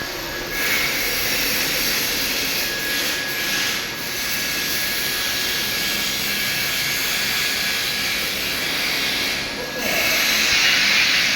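TIG welding arc hissing steadily, with a thin high tone running under the hiss. It grows louder and brighter about ten seconds in.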